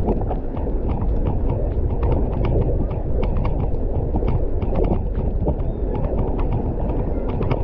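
Mountain bike riding fast over a wet dirt road: wind rumbles across the microphone over tyre noise, with frequent irregular clicks and knocks as the bike rattles over bumps.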